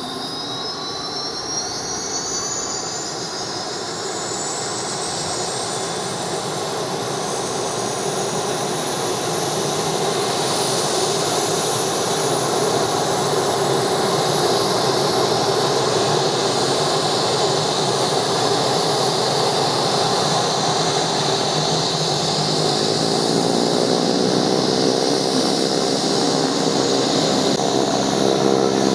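Pilatus PC-12's single Pratt & Whitney PT6A turboprop running as the aircraft taxis. A high turbine whine rises in pitch over the first ten seconds or so, while the engine and propeller sound grows slowly louder.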